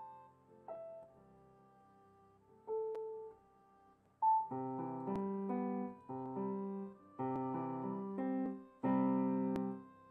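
Electronic keyboard played with a piano sound: a few single notes with pauses between them, then from about four seconds in a run of chords with bass notes, each struck and left to ring.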